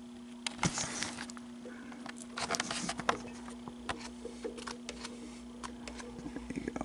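Camera handling noise: scattered light clicks and taps as the camera is moved about close to the parts, over a faint steady hum.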